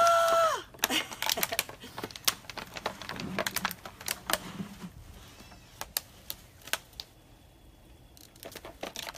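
A run of sharp clicks and taps, dense for the first few seconds, then sparser and fainter, after a brief high-pitched held vocal sound at the very start.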